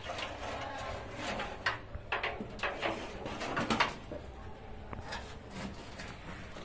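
Kitchen things being handled: a run of light knocks and clatters through the first four seconds, then quieter.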